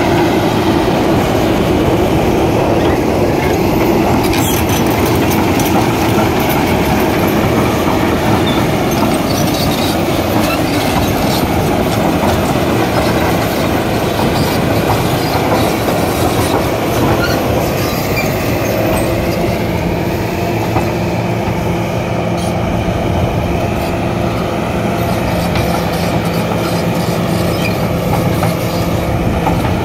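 Komatsu PC300LC hydraulic excavator working: its diesel engine and hydraulics run steadily with a held whine, and metal clanks and rattles come from the machine as it swings and digs.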